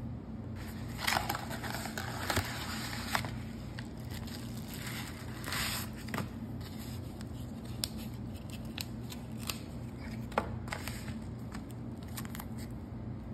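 A yellow padded paper mailer being handled and torn open: crinkling and tearing paper, with several loud rustles in the first six seconds and scattered light clicks after, over a steady low hum.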